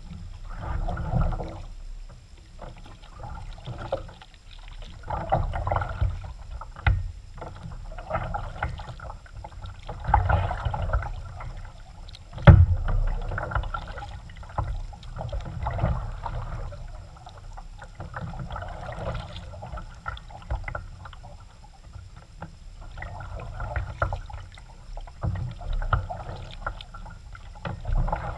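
Kayak paddle strokes dipping and pulling through the water, a splash roughly every two seconds. About halfway through there is one sharp knock, the loudest sound.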